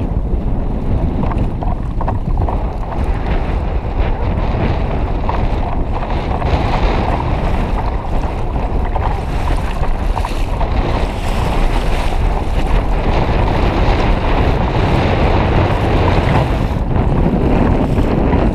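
Strong wind buffeting the microphone over the steady rush of choppy sea waves around a kayak.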